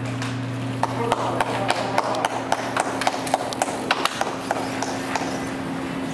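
Spectators beating out a fast, even rhythm of sharp beats, about four a second, starting about a second in and slowing and fading out around five seconds, over a steady low hum.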